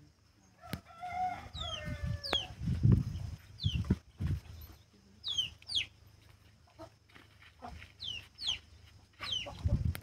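Domestic chickens calling: a hen's drawn-out call about a second in, then repeated short, high, falling peeps, mostly in pairs. A few dull low thumps sound among them.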